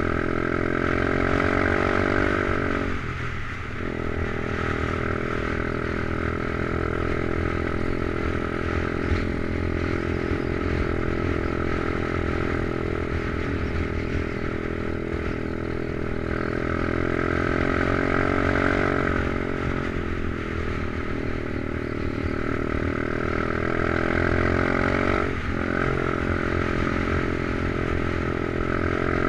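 Stomp pit bike's new 125cc Lifan single-cylinder four-stroke engine, being run in, running steadily while riding. The engine note briefly drops and picks up again twice, about three seconds in and near the end.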